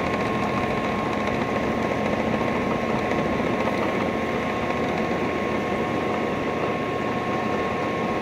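Ride-on miniature train running steadily along its track: a continuous rumble with a steady high whine over it.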